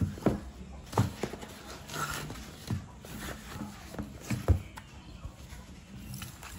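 A cardboard water-bottle box and a fabric carrier bag handled on a desk: rustling, with several sharp knocks as the box is pulled out and set down, the loudest about four and a half seconds in.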